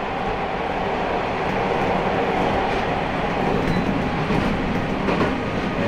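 Passenger train running along the track, heard from inside the rear car: a steady noise of wheels on rails, with a few faint ticks near the end.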